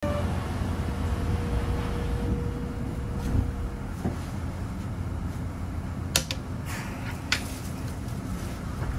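Inside the car of an Osaka Metro New Tram, a rubber-tyred automated train running on its concrete guideway: a steady low rumble, with a thin steady whine that stops about four seconds in. A few sharp clicks and knocks come in the second half.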